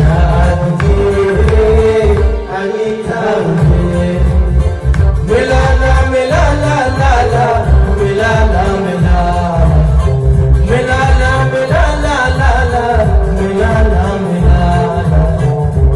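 Live Harari song: a man sings through a microphone, accompanying himself on guitar, over a heavy, pulsing bass beat. His sung phrases come out most clearly in two stretches, in the middle and again near the end.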